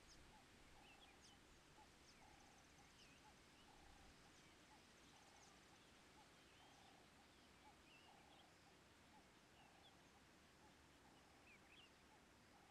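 Faint wetland background: a steady run of short animal calls, about two a second, with scattered high bird chirps above them.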